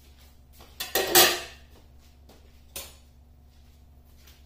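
Aluminium cooking-pot lid clattering as it is handled: a loud metallic clatter about a second in, then a single shorter knock near three seconds.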